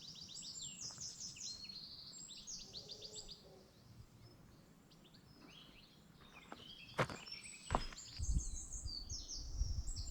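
Small songbirds singing in quick, high-pitched phrases of rapidly repeated notes. The song fades about three and a half seconds in and returns near the end. Two sharp clicks come around seven seconds in, followed by low rumbling.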